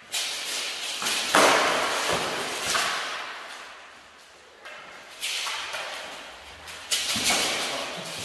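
Two armoured fencers clashing and grappling: about five sudden thuds and clatters of blows and bodies against mail and plastic limb armour, each trailing off in the echo of a large hall, the loudest about a second and a half in.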